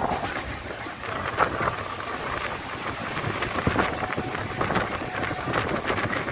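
Moving passenger train's running noise: a steady rumble and rattle of wheels on the rails with scattered clacks, and wind buffeting the microphone.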